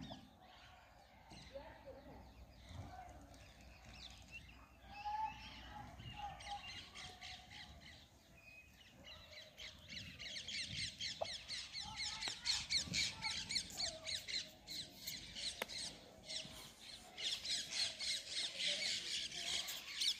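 Small birds chirping in quick, dense runs of high notes, many per second, that get louder about halfway through and again near the end.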